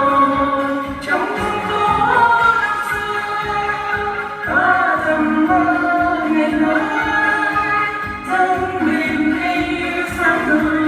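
Music with a voice singing a melody over instrumental accompaniment, the sung notes held and gliding between phrases.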